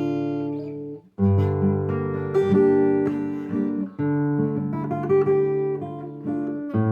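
Solo acoustic guitar playing a waltz, with melody notes over chords. The playing breaks off briefly about a second in, then resumes.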